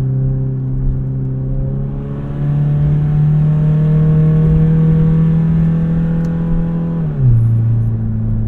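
Toyota Camry four-cylinder engine screaming at full throttle with its exhaust fallen off, so the raw, unsilenced exhaust note comes straight from the header. The pitch climbs steadily, jumps up about two seconds in, and falls sharply about seven seconds in.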